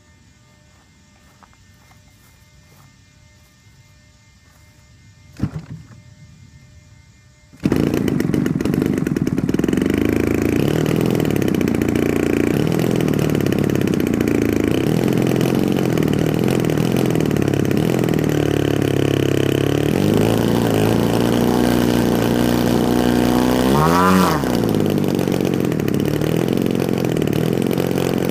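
A short thud about five seconds in. Then a 3W-106B2 twin-cylinder two-stroke gasoline engine on a large RC plane starts suddenly and runs very rough, its pitch wavering unevenly. Near the end its pitch rises briefly and falls back as it bogs instead of spinning up, misfiring that new spark plugs have not cured.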